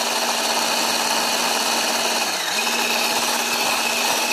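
Electric hand mixer running steadily, its beaters whisking eggs and sugar in a glass bowl until pale and frothy. The motor's hum dips in pitch briefly a little over two seconds in.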